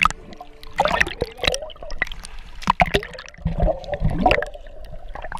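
Seawater sloshing and splashing against a GoPro held at the surface, with sharp splashy clicks. Around the middle it turns to a low bubbling gurgle as the camera goes under.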